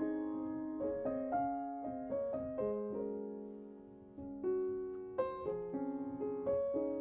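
Soft background piano music: gentle notes struck one after another and left to ring and fade, with a quieter lull about four seconds in.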